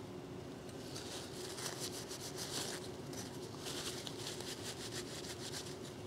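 Paper towel rubbing and rustling against a brake caliper bracket's metal abutment clips in short scratchy strokes, wiping off old grease, over a faint steady hum.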